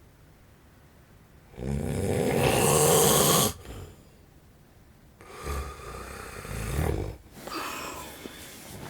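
A sleeping man snoring: after a short quiet pause, one long, loud, raspy snore, then two quieter snores with a low rumble.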